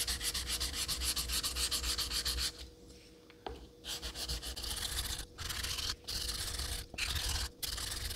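A straight razor's steel blade honed on a wet Naniwa 1000-grit waterstone with thick slurry, scraping back and forth on the stone. The strokes come quick and short at first, stop for about a second with one small click, then go on as slower, longer strokes with short breaks between them. This is the 1K stage of setting the edge after the bevel was rebuilt.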